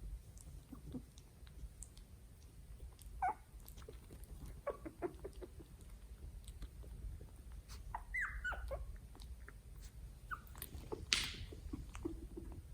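Three-week-old Italian Greyhound puppies whimpering and squeaking in short, scattered calls, some falling in pitch. A brief breathy puff comes near the end.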